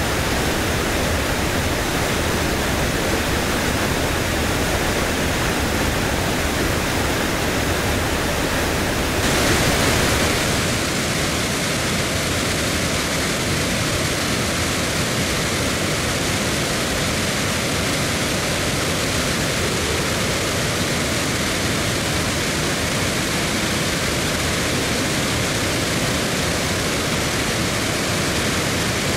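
Ladybower Reservoir's bellmouth overflow spillway at full flood, the full reservoir pouring over the rim and down the shaft in a steady rush of falling water. About ten seconds in there is a brief louder swell, and the rush then settles a little lighter in the low end.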